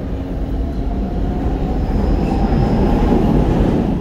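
Brussels metro train running, heard from inside the passenger car: a steady rumble of wheels and running gear that grows louder about halfway through as the train pulls out of the station into the tunnel.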